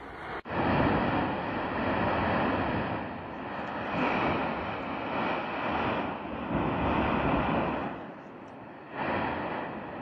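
La Palma volcano's vent jetting pyroclasts and bombs: a continuous rumbling noise that swells and eases every second or two, with a sudden brief drop about half a second in and a quieter spell near the end.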